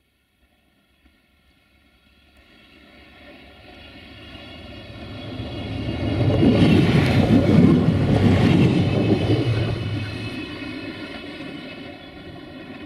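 Siemens Desiro diesel multiple unit approaching and passing close at speed. Its engine drone of several steady tones, with wheel and rail noise under it, swells from near silence to a peak about seven seconds in, then fades as the train draws away.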